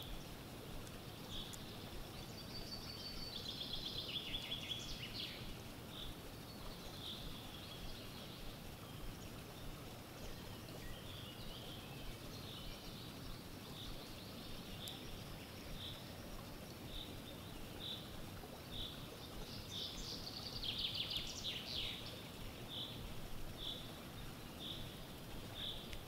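Wild songbirds singing: one bird repeats a short, high note about once a second, and a rapid trilled song phrase comes twice, about three seconds in and again about twenty seconds in.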